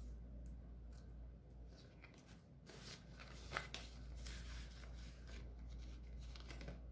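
Faint rustling of paper banknotes and the clear plastic pouch pages of a cash-envelope binder being handled, with one sharp tick about three and a half seconds in.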